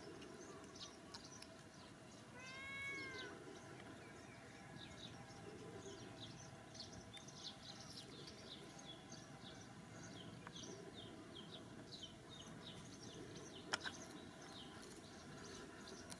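A baby monkey gives one short squealing call about three seconds in, rising then falling in pitch. The rest is faint, with rapid high chirping and one sharp click near the end.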